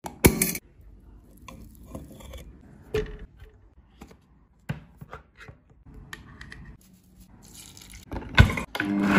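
Kitchen prep handling sounds: scattered knocks and clicks as a plastic lid is worked off a can and containers are set on a table, with a sharp knock near the start and another near the end the loudest. Milk pours into a plastic measuring jug, and right at the end a blender starts to run up.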